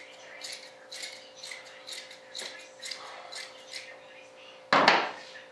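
Fibreglass cloth being handled and worked into a mould, with short scratchy strokes about twice a second, then one louder rustling burst near the end.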